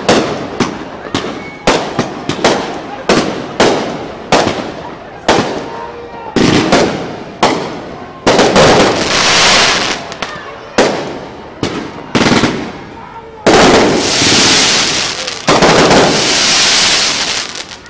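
Fireworks display: aerial shells bursting in quick succession, about two sharp bangs a second. About eight seconds in, and twice more near the end, this gives way to longer stretches of dense, continuous noise from rapid-fire volleys.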